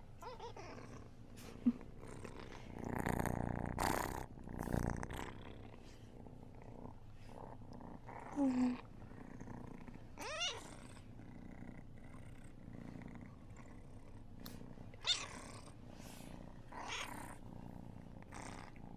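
A pet cat purring steadily. There is a louder stretch of rustling noise about three to five seconds in, and a few short louder sounds, one of them a quick rising call about ten seconds in.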